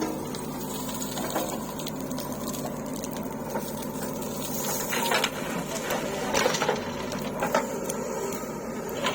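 Diesel engine of earth-moving machinery running steadily with a rhythmic clatter, with a few sharp metallic knocks about halfway through.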